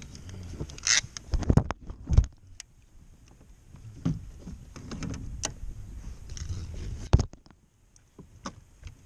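Irregular knocks and clatter of a fishing rod and aluminium landing net being handled against a plastic pedal kayak, over rustling of clothing; the loudest knocks come about two seconds in and about seven seconds in.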